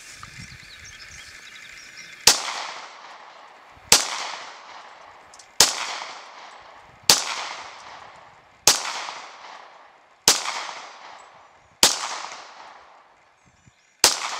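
.40-calibre semi-automatic pistol fired eight times at a slow, even pace, about one shot every one and a half seconds, the first about two seconds in. Each sharp shot trails off in a fading echo.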